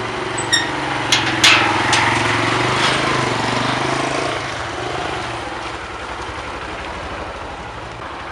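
A motorcycle engine running, slowly fading over the second half, while a barred metal gate clanks and rattles several times in the first three seconds as its latch is worked and it swings open.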